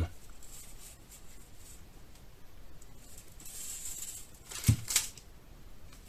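Faint handling noises of small gear on a table: a soft rustle, then two short sharp clicks near the end.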